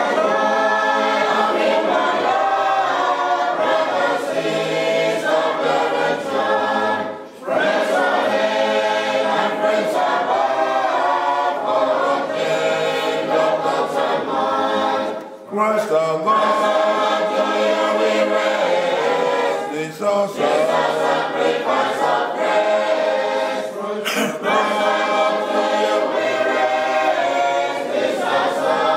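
A group of voices singing a hymn together without instruments, in long phrases with brief pauses between them.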